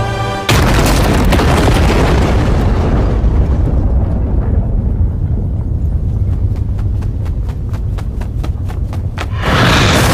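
Cinematic explosion sound effect from an animated fight scene. A sudden huge blast about half a second in cuts off the music and is followed by a long, deep rumble. In the second half there is a rapid run of sharp cracks, several a second, and then a second loud blast near the end.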